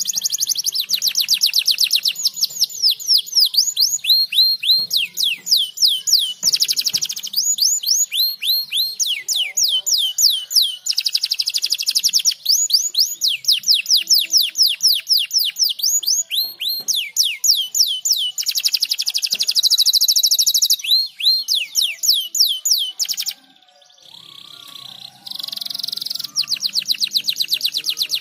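Domestic canary singing: long, fast trills and rolls of rapidly repeated chirps, high-pitched and continuous, with a short break about twenty-three seconds in.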